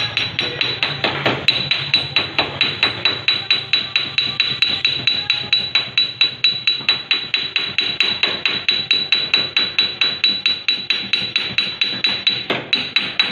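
Rapid, steady hammering on car-body sheet metal, about four to five blows a second, each with a metallic ring. It is a panel beater working a dent out of a Nissan Sunny's door.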